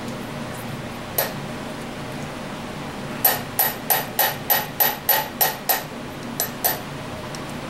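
Sharp metal clicks from the valves and cylinder head of a Chevy 350 as they are handled: one click, then a run of about ten at roughly four a second, then two more.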